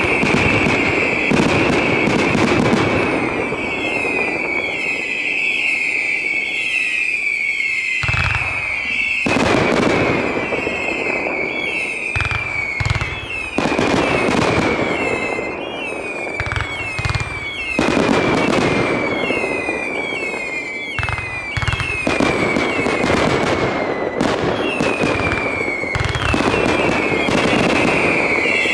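Fireworks display: a dense run of bangs and crackling bursts, overlaid throughout by many short falling whistles from whistling fireworks.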